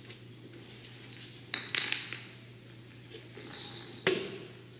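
Fire hose being flat-loaded by hand into an aluminum bumper hose tray, knocking and clinking against the metal: a cluster of clattering clinks about a second and a half in, then one sharp knock near the end.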